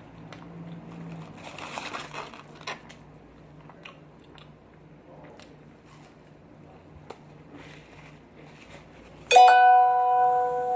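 Close-up chewing with soft smacking and crunching. About nine seconds in, a phone goes off loudly, an alert tone of several notes sounding together that rings on for about two seconds.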